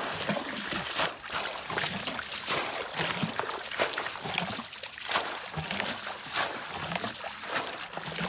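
Shallow muddy water splashing and sloshing again and again as it is bailed out with a bucket and waded through barefoot.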